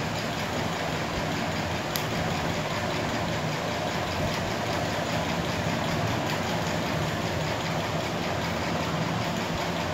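Steady background noise, a low hum with hiss, unchanging throughout, with one faint click about two seconds in.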